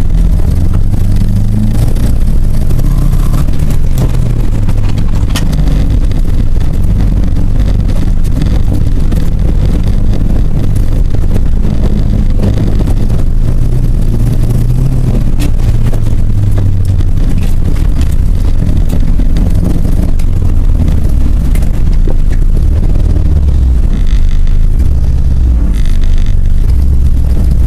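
Car engine running with a misfire: a loud, continuous low rumble whose note rises and falls.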